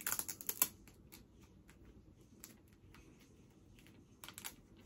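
Light clicks and crinkles of small plastic packaging being handled and opened by hand: a quick cluster at the start, a quiet stretch, then another cluster near the end.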